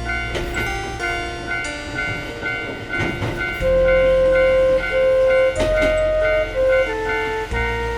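Background music with a melody over a bass, mixed with a railroad crossing bell ringing steadily in two alternating tones and the sound of a train running by.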